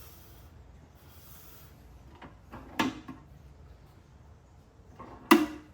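Ball-bearing drawers of a US General mini toolbox being worked, with a few clunks as they slide and shut: two knocks a few seconds in and a louder one near the end that rings briefly.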